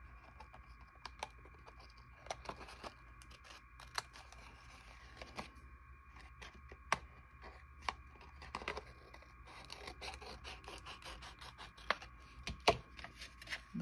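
Scissors snipping through paper-covered card stock in short irregular cuts, with scattered sharp clicks of the blades, over a steady faint hum.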